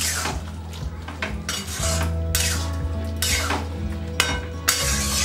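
A spatula scraping and stirring thick chickpea curry in a metal kadai, repeated scraping strokes of the spatula against the pan at an uneven pace.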